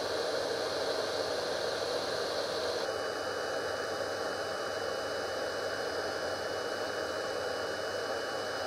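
Hot air gun blowing steadily while shrinking solder-seal wire connectors and heat-shrink tubing: an even rush of air with a faint high whine that drops a little in pitch about three seconds in.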